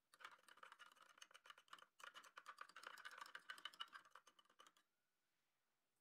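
A clear plastic spoon stirring and scraping inside a small plastic jar of yellow liquid: rapid small clicks for about five seconds, with a brief pause near two seconds in.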